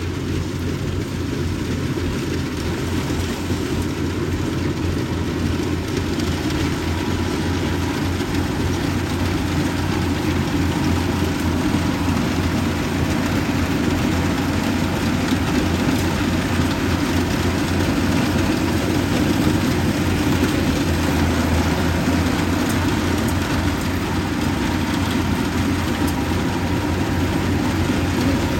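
Yanmar 850 combine harvester's engine running steadily, getting a little louder from about ten seconds in.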